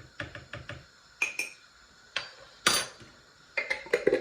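Kitchen utensils and spice containers clinking and tapping while spices are added to tamarind water. A run of quick light taps opens it, two ringing clinks come about a second in, and there is a short scrape near the middle, with more taps near the end.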